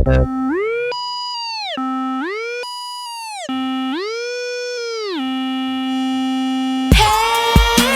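A lone electronic synth tone with many harmonics, gliding smoothly up an octave and back down several times and holding each pitch between glides. Near the end the full beat of the song cuts back in.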